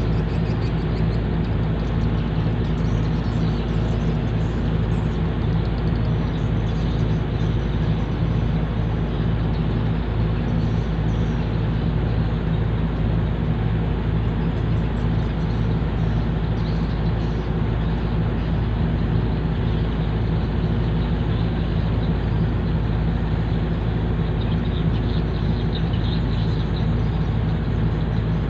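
Boat engine running steadily, an even low hum that does not change in speed.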